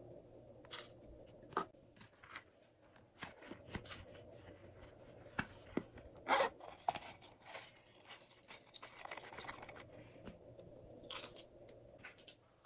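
Glossy slime being worked by hand: an irregular run of sharp, sticky clicks and pops, with a longer crackling stretch in the second half.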